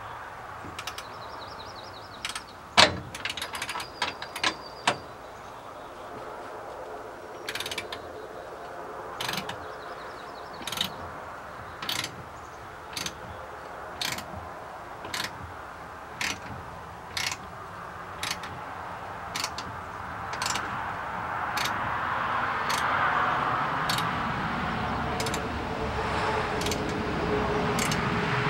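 Hand ratchet wrench clicking as a frame bolt is tightened, a short click on each swing about once a second, after a sharper metal clank about three seconds in. A rushing noise builds near the end.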